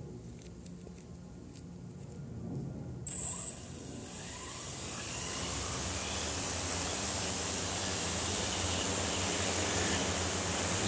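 Large home-built quadcopter with four 320 kV motors and 15-inch carbon fibre propellers spinning up and lifting off. The rush of the propellers starts about three seconds in and grows steadily louder, with a thin high tone over it. Before that there is only a low hum with a few faint clicks.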